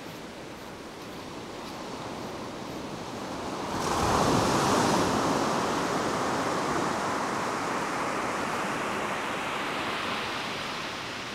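Small waves breaking on a sandy beach: the surf builds, a wave breaks about four seconds in with a louder rush of foam, then the wash slowly fades.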